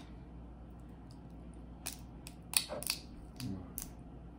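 Crawfish shells being cracked and broken open by hand, giving several sharp cracks and snaps, mostly in the second half.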